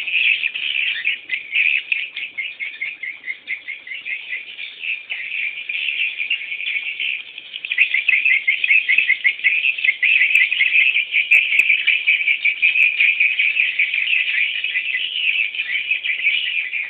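Swiftlet chicks chirping without pause in a dense, rapid twitter, swelling louder from about eight seconds in.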